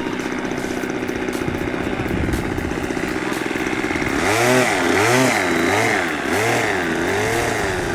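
O.S. 32SX two-stroke glow engine on an RC model plane idling steadily. From about four seconds in, it is revved up and down about five times, its pitch rising and falling with each throttle blip.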